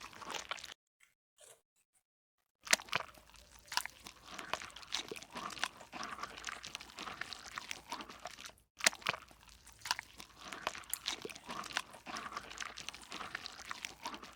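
Slime being squeezed and kneaded by hand, giving a dense run of crackling, popping clicks. A short burst comes at the start, then after a pause of about two seconds a steady crackle runs on, broken once for a moment about two-thirds of the way through.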